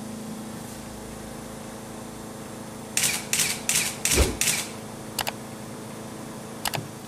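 A quick run of five sharp clacks, about a third of a second apart, starts about three seconds in, followed by two pairs of light clicks, over a steady low hum.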